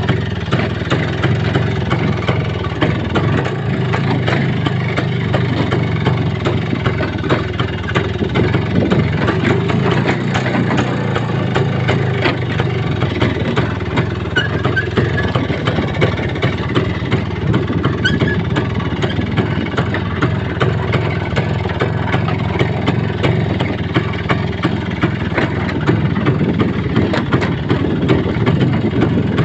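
A motor vehicle's engine running steadily while driving, with many small knocks and rattles throughout.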